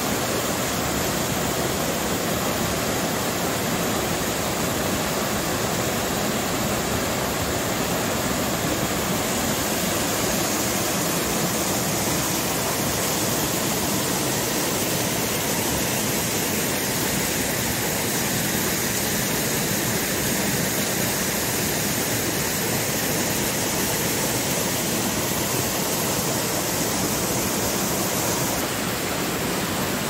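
Small waterfall with water rushing steadily over rocks, an even, unbroken noise.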